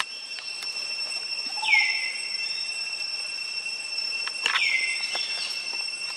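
Steady high-pitched drone of insects in the forest. Over it, a short animal call that swoops down in pitch and then holds level is heard three times, a few seconds apart.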